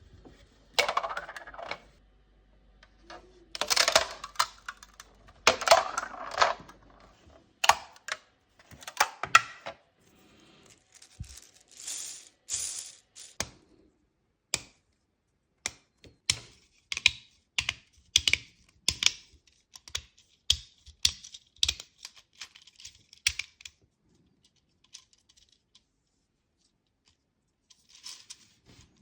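Hard 3D-printed plastic parts of a spinner fidget toy clicking and rattling as they are handled, with a few longer rattles in the first seven seconds and then a run of separate clicks that thins out near the end.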